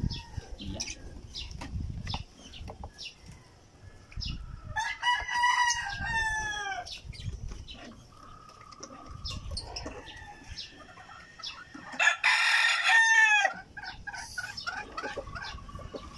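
Roosters crowing: one long crow about five seconds in and a louder one about twelve seconds in, with low rumble between.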